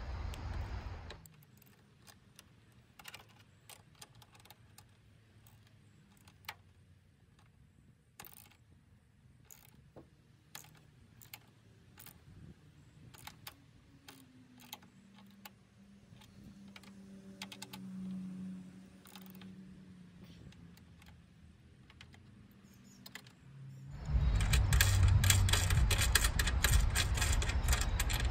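Ratchet and socket clicking in scattered light clicks as a rivet nut is tightened into sheet metal, with a box wrench holding the nut: the nut's brass body is being drawn up to expand behind the panel. About four seconds before the end, a much louder, even rushing noise sets in.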